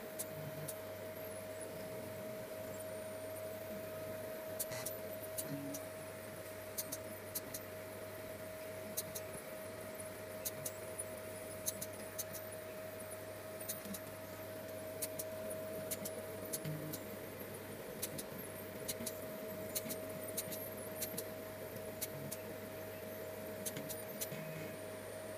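Small stepper motors salvaged from DVD drives driving a homemade Arduino CNC pen plotter as it draws: a steady whine with many irregular light clicks and ticks from the moving carriages.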